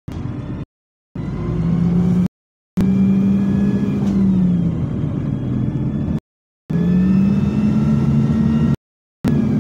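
Bus diesel engine heard from inside the saloon, pulling hard under acceleration with its pitch climbing. About four seconds in it eases and drops back, then climbs again. The sound cuts out to silence for about half a second four times.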